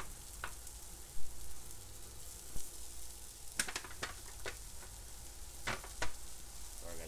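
Quinoa black bean patties sizzling on a hot Blackstone flat-top griddle, with a few sharp taps and clicks as another patty is set down on the steel.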